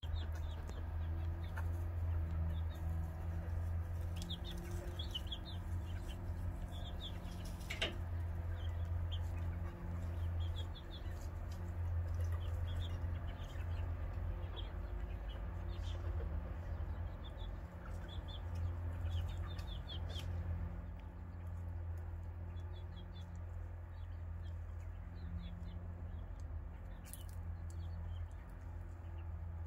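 Flock of backyard hens and a rooster foraging and clucking softly, with clusters of short high chirps every few seconds over a steady low hum. A single sharp click about eight seconds in.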